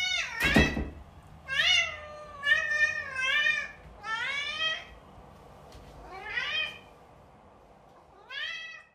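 Long-haired domestic cat meowing over and over: about six drawn-out meows with gaps of a second or so between them, the later ones fainter.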